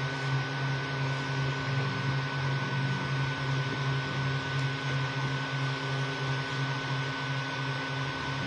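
Creality Ender 3 V2 3D printer printing: a low motor hum pulsing a few times a second as the bed and print head move back and forth, over steady fan noise with a thin, constant high whine.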